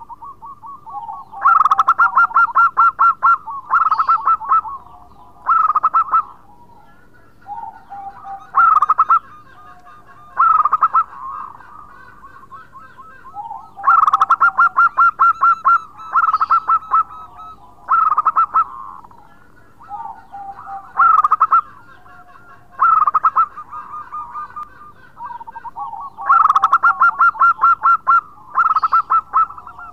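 Zebra dove (perkutut) singing its cooing song: three loud bouts of rapid trilled coos, about twelve seconds apart, with softer, lower coos between them.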